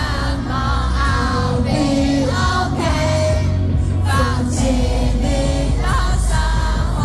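Loud pop music with heavy bass and singing.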